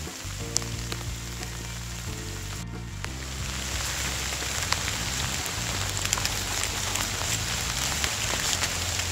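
Steady rain falling, with many single drops ticking, over soft background music with sustained low notes. The rain grows louder after a brief cut about three seconds in.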